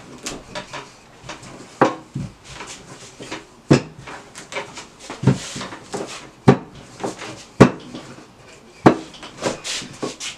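Wooden rolling pin rolling out thin pizza dough on a floured wooden table, rubbing over the dough with a sharp wooden knock every second or two as it bumps the tabletop.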